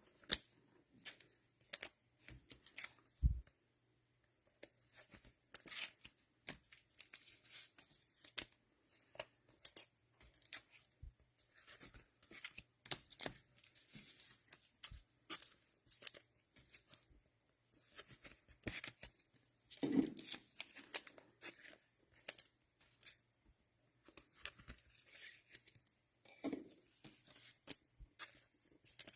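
Cellophane wrappers of football card cello packs being torn open and crinkled, with the cards and wrappers handled: a steady run of irregular rustles, tears and small clicks.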